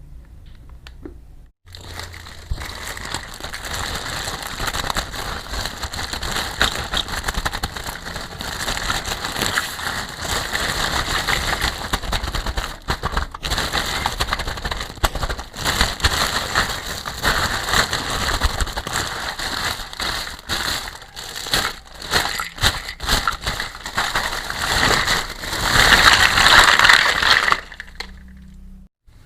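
Packaging being handled and unwrapped, with continuous crinkling and crackling. It starts about two seconds in, is loudest near the end, and stops shortly before the end.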